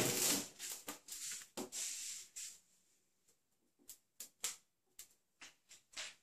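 A ferret scrabbling on a wire cage and scampering over a tiled floor: a clatter at the start, about two seconds of rustling and scuffling, then a few scattered light clicks.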